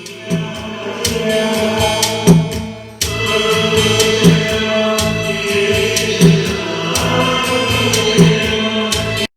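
A song with choral singing and a heavy beat about every two seconds, played through a home 5.1 surround amplifier and its speakers with surround mode switched on. The music stops abruptly near the end.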